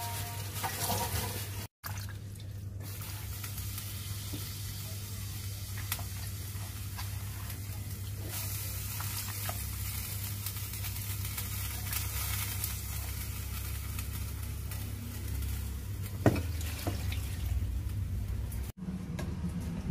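Water boiling in a large steel stockpot, with cassava leaves cooking in it: a steady bubbling hiss over a low hum. One sharp knock sounds late on.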